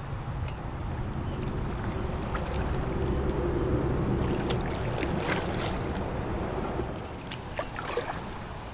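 Kayak paddling on calm canal water: small splashes and drips from the paddle blades, more of them from about halfway through, over a steady low rumble of wind on the microphone.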